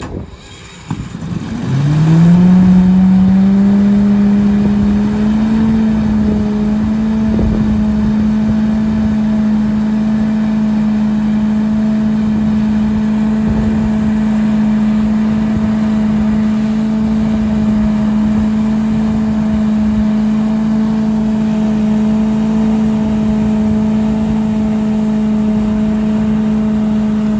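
Foresteel PROvac leaf vacuum's 18 hp engine and fan speeding up at about 70% throttle. Its pitch rises sharply about two seconds in, settles within a few seconds, and then runs steadily with a rushing airflow.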